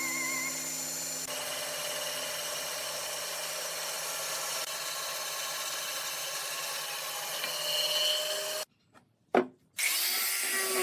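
A hand tool or abrasive working wood with a steady rubbing, rasping sound. About a second before the end it breaks off briefly, with a single click in the gap.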